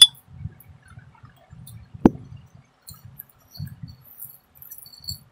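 Close-up chewing of puffed rice (muri) in irregular soft bursts, with a sharp click at the very start and a single loud knock about two seconds in.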